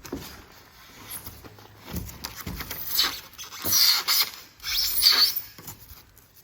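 Rigid foam insulation board squeaking and rasping as it is handled, with three louder squeaky strokes about three, four and five seconds in.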